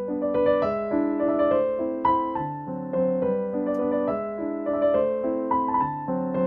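Background music: a gentle piano tune, with notes struck every half second or so.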